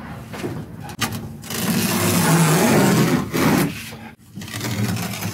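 Masking tape being peeled off a kayak's carbon-fibre cockpit, away from a wet bead of marine sealant, with a loud ripping noise lasting about two seconds from a second and a half in.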